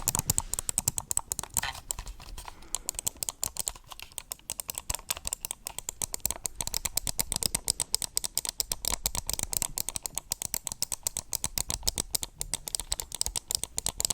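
Rapid, continuous typing on a computer keyboard: a steady stream of key clicks, many a second.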